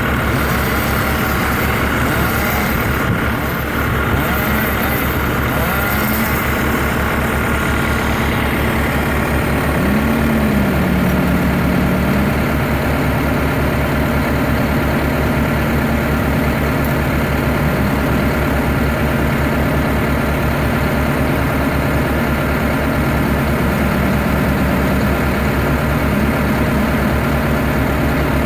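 Tractor engine driving a HAM300 tower yarder, running steadily, with a few short wavering whines over it and a slight rise in level about eight seconds in.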